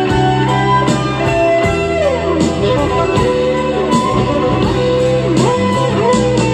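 Instrumental break of a 1988 Soviet art-rock song playing from a vinyl LP: an electric guitar line with bending notes over steady bass and drums, no vocals.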